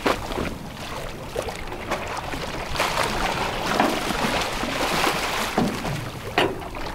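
Irregular splashing of sea water, several loud splashes among them, as a large harpooned halibut thrashes at the surface beside the boat. Steady wind and boat noise run under it.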